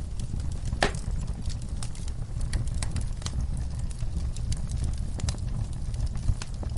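Wood campfire crackling: irregular sharp pops and snaps over a steady low rumble, with one louder snap about a second in.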